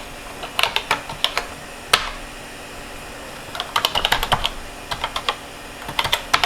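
Typing on a computer keyboard: short runs of quick keystrokes with pauses between them, and one single louder key strike about two seconds in.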